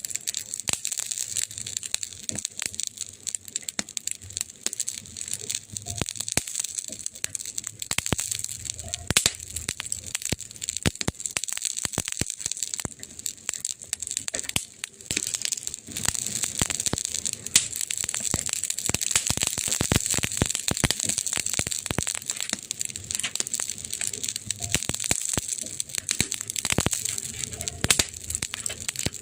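Burning wood crackling: dense, irregular pops and snaps over a steady hiss, with a few louder snaps.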